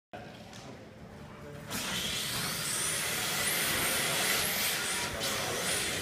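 Two electric RC drift cars running laps: a high-pitched motor whine that rises and falls again and again with the throttle, over a steady hiss. The sound starts abruptly just after the start and gets louder about two seconds in.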